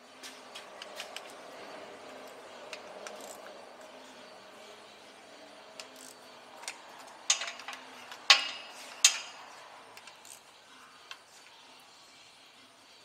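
Metal hand tools clicking and clinking as work goes on under the car, with three sharper metal clanks about seven, eight and nine seconds in.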